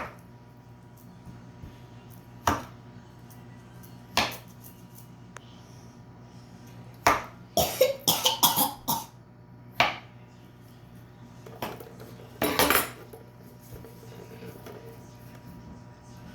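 Hard objects knocking and clattering on a hard surface. A few single sharp knocks come first, then a quick run of clatters about halfway through and one more short burst a few seconds later.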